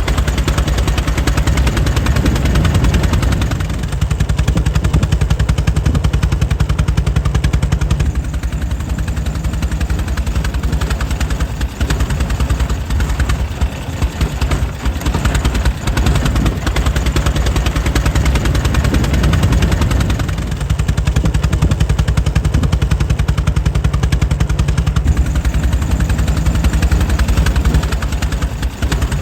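Air-cooled engine of a 1904 Mitchell running steadily, with a fast, even rhythm of firing strokes that swells and eases slightly in loudness.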